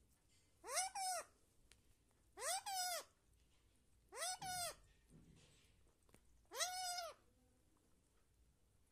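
Indian ringneck parrot calling four times, about every two seconds. Each call is a short two-part note that rises and then falls in pitch.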